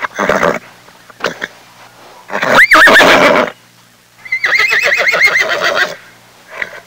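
Horse whinnying: a short call at the start, then two long whinnies a couple of seconds apart, each rising in pitch and then quavering up and down.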